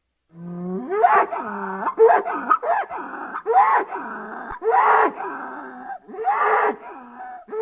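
Stock dinosaur sound effect: a run of short, pitched animal calls, each rising and falling, about one a second, starting abruptly from silence.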